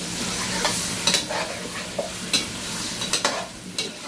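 Chicken pieces sizzling in hot oil with fried onions and ginger-garlic paste in a pot over a high flame, being seared until the meat changes colour. A metal spatula stirs them, scraping and knocking against the pot about seven times.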